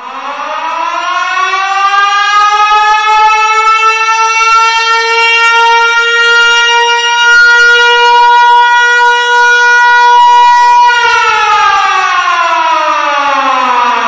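Loud siren sounding the signal to break the Ramadan fast (buka puasa): it starts suddenly and rises in pitch over the first few seconds, holds one steady tone for about eight seconds, then slides steadily down in pitch through the last few seconds.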